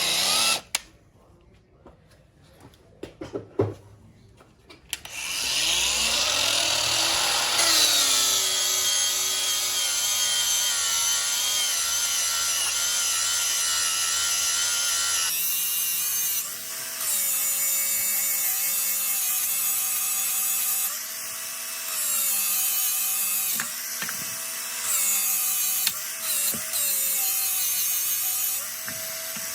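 Handheld electric power tool with a polishing wheel, polishing an aluminium engine side case: after a few brief clicks it spins up with a rising whine about five seconds in and runs steadily. Its sound changes about halfway through, and after that the running note dips and recovers several times.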